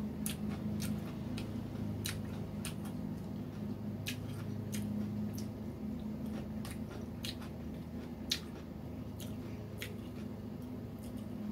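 A person chewing food close to the microphone, with crisp crunches and mouth clicks at irregular intervals and one sharper crunch about eight seconds in, over a steady low hum.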